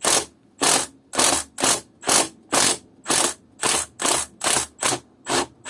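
Socket ratchet worked back and forth in short strokes, a rasp of pawl clicks on each return stroke, about two a second. It is unscrewing a tight inlet manifold bolt on a GM 1.8 16-valve engine.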